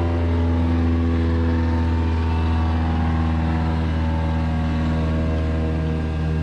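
Light aircraft's air-cooled piston engine idling steadily on the ground, its propeller turning, at an even pitch.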